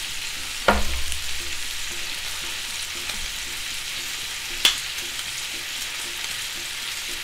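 Pork large intestine (makchang) sizzling on an electric grill, a steady hiss. A metal ladle clinks sharply against the pot about a second in and again about two-thirds of the way through.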